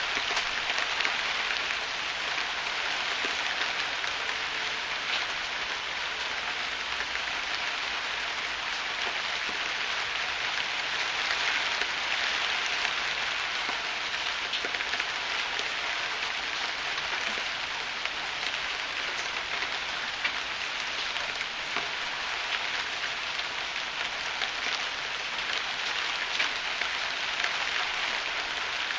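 Heavy rain falling steadily: a dense, even hiss with many separate drops ticking through it.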